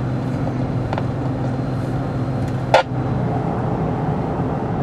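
Steady engine drone and road noise inside a moving car's cabin, with one short sharp burst a little under three seconds in.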